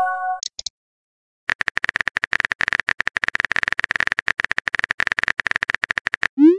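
Texting-app keyboard typing sound effect: a fast, even run of small clicks lasting about five seconds. It is preceded by the tail of a short musical chime and two high blips, and it ends with a quick rising pop as the message is sent.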